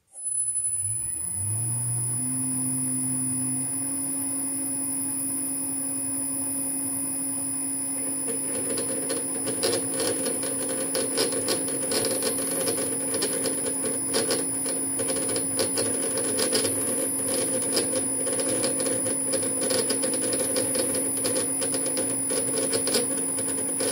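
Metal-turning lathe starting up, its motor and gearing rising over a couple of seconds to a steady hum with a high whine. From about eight seconds in, a threading tool cuts an internal 5 tpi Acme thread in a bronze nut, adding a crackly scraping of many small clicks over the running machine.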